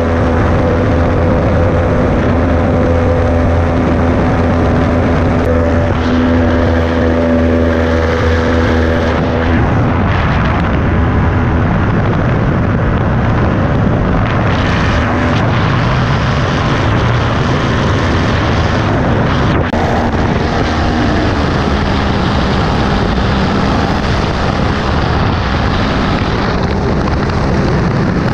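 Ultralight aircraft's propeller engine running steadily in flight, heard from the open cockpit with wind rushing over the microphone. Its steady hum is clearest for about the first ten seconds, then the rushing wind mostly covers it.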